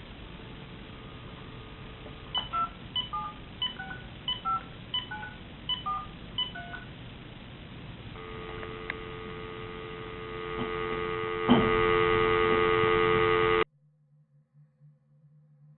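Telephone line sounds: a brief dial tone, then about seven touch-tone keypad beeps dialing a number. A steady, buzzy tone follows and swells louder, with a click partway through, then cuts off suddenly, leaving a faint low hum.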